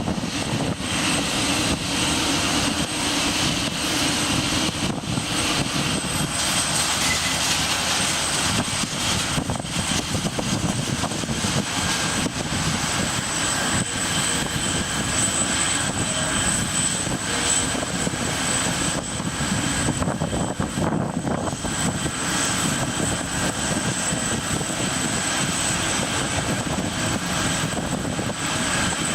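Boeing 747-400 jet engines running at idle: a steady rushing noise with a high, unchanging whine.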